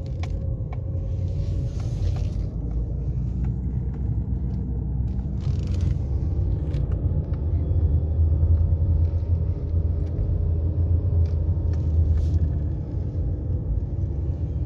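Car running along a road, heard from inside the cabin: a steady low engine and road drone with a few light clicks.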